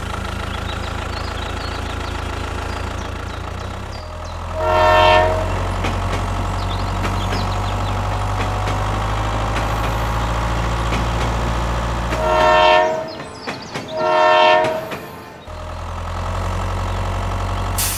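Train horn blowing three times: one blast about five seconds in, then two close together around twelve to fifteen seconds. A steady low rumble runs underneath and drops out briefly around the last two blasts.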